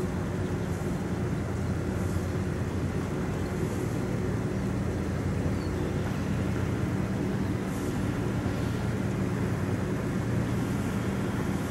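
Steady low hum of a pusher tug's diesel engine driving a fully loaded push convoy of barges upstream, with wind noise on the microphone.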